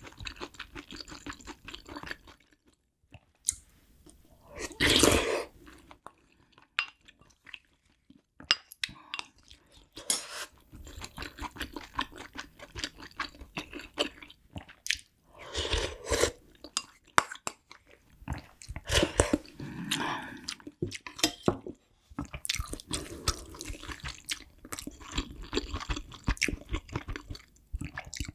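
Close-miked chewing of kimchi stew with rice and ramen noodles, wet mouth sounds and small clicks, with a few louder slurps and spoon-on-bowl clinks.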